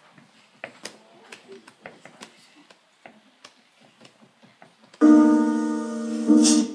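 Scattered light clicks and taps for about five seconds, then a keyboard chord struck loud and left to ring, fading, and struck again about a second and a half later.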